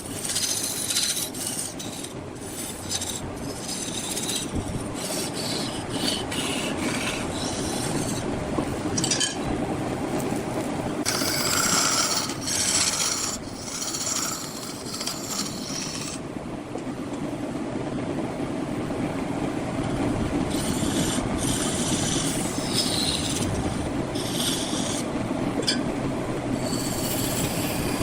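Large wood lathe running with a steady hum while a turning tool scrapes the spinning wood in repeated, irregular cuts.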